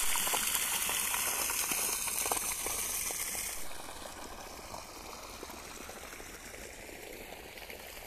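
Water gushing from a white plastic irrigation pipe outlet into a muddy field channel, a loud steady rush. About three and a half seconds in it drops to a quieter sound of water running through small field channels.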